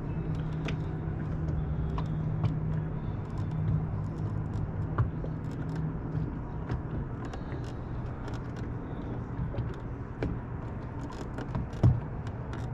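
Electric trolling motor humming steadily, its tone shifting lower about six seconds in, with light clicks and ticks from the fishing tackle and a sharp knock near the end.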